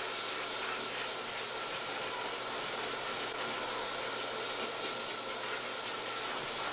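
Pet grooming dryer blowing steadily through its hose: an even rushing hiss of air with a faint steady whine from the blower motor.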